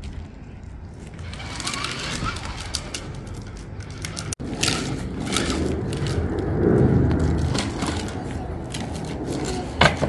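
Outdoor rumble and scraping on tarmac, with a single sharp plastic clatter just before the end as a toy stick vacuum cleaner falls flat onto the ground.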